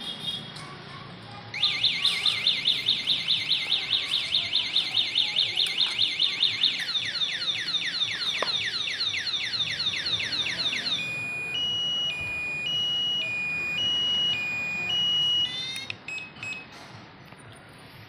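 Strauss bicycle security alarm sounding its electronic siren. It cycles through patterns: fast repeated rising chirps, then falling sweeps, then a two-tone high-low warble, and ends with a few short chirps before cutting off.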